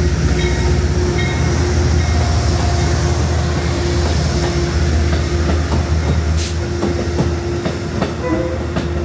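Passenger train running on the rails: a steady low rumble with a held tone over it and scattered clicks from the wheels. There is a brief hiss about six seconds in.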